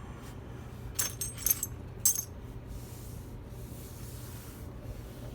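Small metal tools clinking against each other as they are handled: three sharp clinks about one, one and a half and two seconds in, over a steady low hum.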